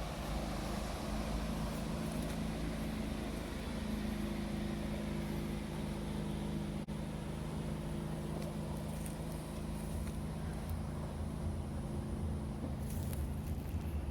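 Steady low mechanical hum with a constant outdoor rush, like traffic; it drops out for an instant about seven seconds in.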